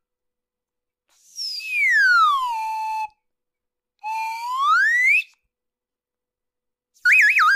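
Cartoon slide-whistle sound effects. A long falling glide levels off, a rising glide follows about a second later, and a fast wobbling whistle comes near the end, with silent gaps between them.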